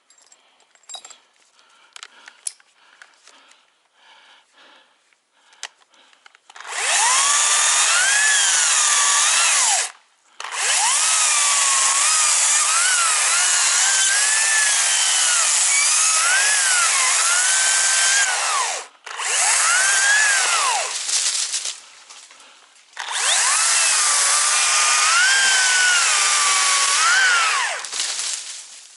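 Two-stroke chainsaw cutting wood in four long runs starting about six seconds in, its engine pitch wavering as it bogs and recovers under load, with short drops between cuts. Light clicks and rattles come before it.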